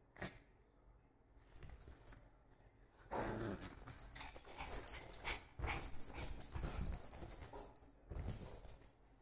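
Small dog growling in play while tugging a plush toy, with a metal jingle from its collar. The growling runs from about three seconds in until shortly before the end.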